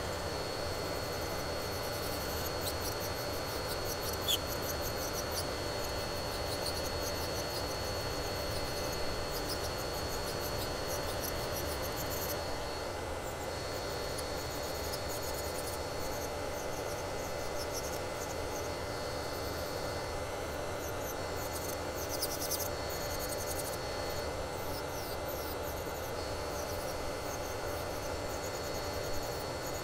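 Electric nail drill (e-file) running at a steady speed with a thin high whine, its bit grinding gel polish off a fingernail, with scratchy grinding coming and going as the bit touches the nail.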